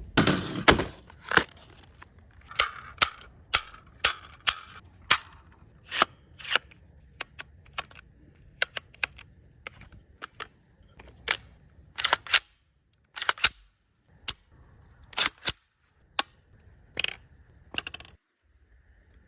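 A PSA Jakl rifle being handled: a string of sharp metallic clicks and clacks at irregular intervals, with the loudest ones at the start and again past the middle.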